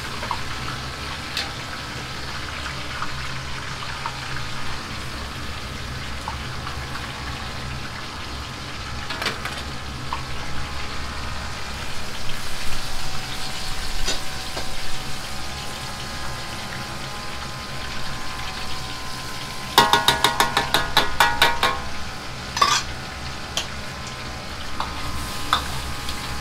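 Mapo tofu sauce simmering and sizzling in a wok over a gas wok burner, with the burner's steady low hum underneath. A few single knocks of the ladle on the wok, and about twenty seconds in a quick run of sharp ladle clacks against the wok, about seven a second for two seconds.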